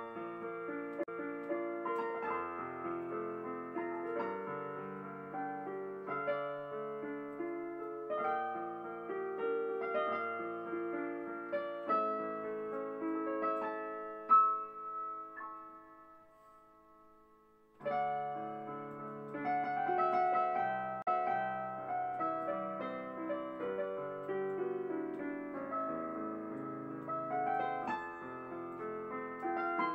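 Gentle solo piano music, one note after another; it dies away about fifteen seconds in and starts again a couple of seconds later.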